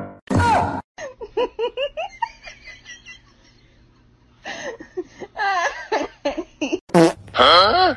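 A person laughing in quick, repeated giggles, in two bouts with a short pause between, getting louder near the end.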